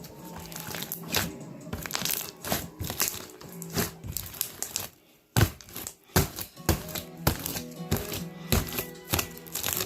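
Slime being worked by hand, popping and clicking irregularly, over a song playing in the background.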